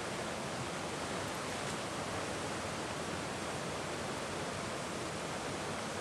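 Waterfall rushing steadily: an even, unbroken hiss of falling water.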